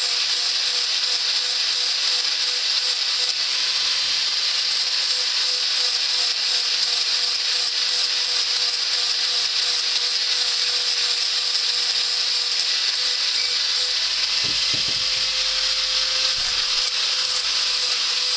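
Power tool with an abrasive wheel grinding and polishing steel, a continuous high hiss that runs without a break.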